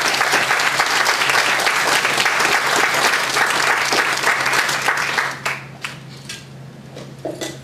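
Audience applauding. The clapping dies away about five seconds in, leaving a few last scattered claps.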